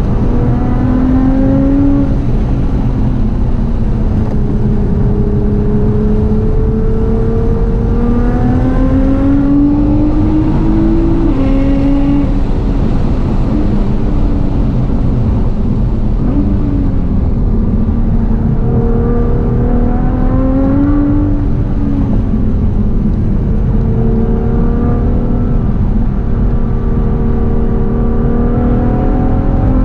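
Nissan GT-R R35's twin-turbo V6, fitted with a full HKS exhaust, running hard on a race track, its engine pitch climbing and dropping again and again as it accelerates and lifts, over a heavy steady rumble.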